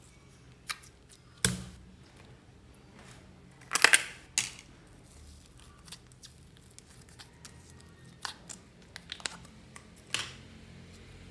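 Slime being mixed and squeezed by hand: scattered sticky pops and clicks, with a cluster of louder ones about four seconds in.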